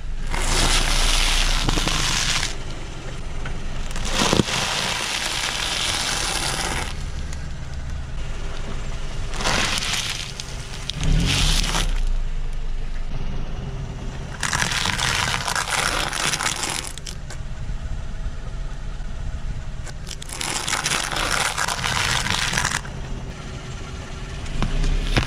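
A car tyre rolls over and crushes food items, puffed rice cakes and a plastic-wrapped sandwich among them, in about six stretches of crunching and crackling one to three seconds long, with a couple of sharp cracks. A low car engine hum runs underneath.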